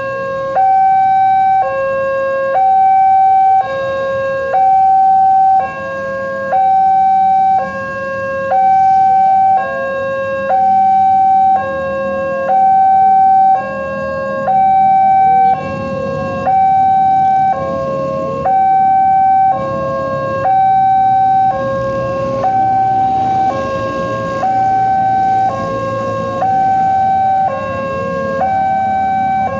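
Railway level-crossing warning alarm sounding its electronic two-tone signal, switching between a higher and a lower tone each held about a second. It is the sign that a train is approaching the crossing.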